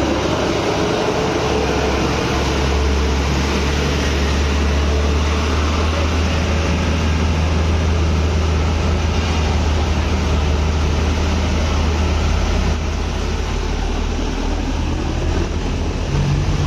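Heavy vehicle's diesel engine running close by, a steady low drone under wide road noise.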